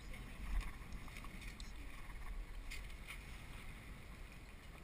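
Wind buffeting the microphone, with a few light clicks and knocks from lines and shackles being handled at the foot of a sailboat's mast.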